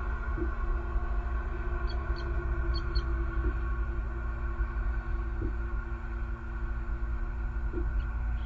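Steady low rumble under a constant electrical hum on an outdoor nest-camera microphone, with a few faint high ticks about two and three seconds in.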